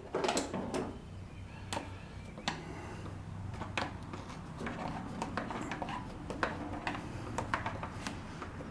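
Irregular light clicks and taps of hand work on a compact tractor's air cleaner assembly, as plastic and metal parts are handled and worked loose, with a few sharper knocks just after the start.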